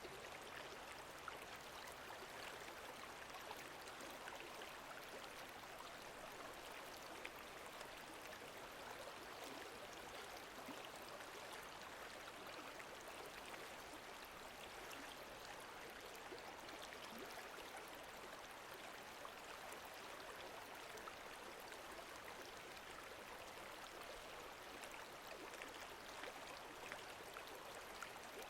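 Lake water lapping gently: a faint, steady wash of small splashes and trickles.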